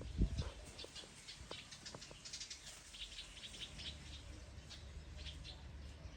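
Small birds chirping around a house: many short, high chirps in quick succession, busiest in the middle. A low thump sounds just after the start, the loudest moment, over a faint low rumble.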